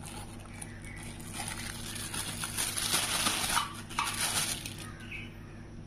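Clear plastic bag around a wristwatch crinkling as it is lifted out of its case and handled, loudest a little past the middle and dying away about five seconds in.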